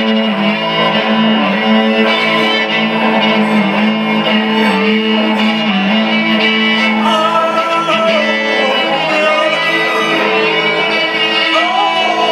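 Violin played live with a bowed melody and vibrato, over a steady guitar accompaniment.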